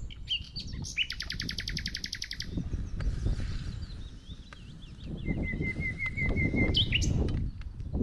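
Small birds singing: a fast, buzzy trill about a second in, then scattered chirps and a run of short repeated notes near the end. A low, uneven rumbling noise sits underneath and grows louder near the end.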